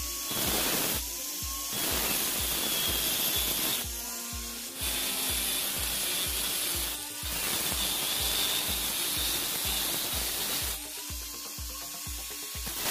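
Angle grinder's cut-off disc cutting through a square steel bar, a steady hissing grind that eases off a few times and briefly whines back up to speed. Background music with a steady low beat runs underneath.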